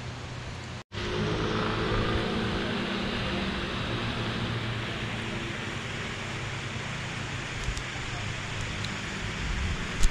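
Road traffic: a motor vehicle's engine hum passing, its pitch drifting slightly down, over steady outdoor noise. The sound drops out for an instant about a second in, and there are a couple of sharp knocks at the very end.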